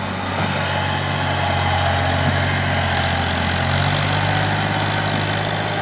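Fiat 480 tractor's diesel engine running hard at high throttle, pulling a heavily loaded sugarcane trolley up a soft slope; steady, with a slight rise about four seconds in.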